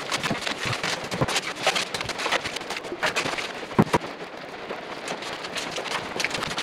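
Aluminium foil tape crackling and crinkling as it is handled and pulled apart from its backing, a dense run of small crackles with a few sharper clicks.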